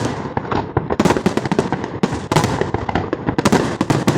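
Fireworks display: a dense, rapid crackle of many small bursts popping one after another, with louder bangs about a second in, a little past two seconds, and again about three and a half seconds in.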